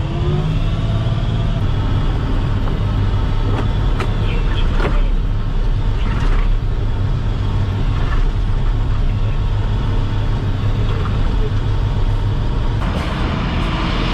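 Diesel engine of an armoured MaxxPro MRAP running steadily as it drives, heard from inside the cab, with scattered knocks and rattles. Near the end a louder hiss comes in.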